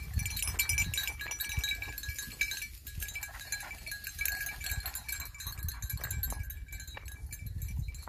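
Collar bells on hunting dogs jingling and ringing with a steady, bright tinkle as the dogs search through the grass for hare scent, over a low rumble.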